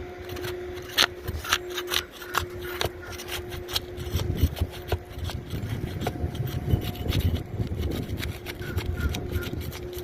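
A metal tool scraping and prying under old, brittle asphalt shingles to get at the roofing nails. There is a string of sharp clicks and ticks in the first three seconds, then rough, continuous scraping and rubbing, with a faint steady hum underneath.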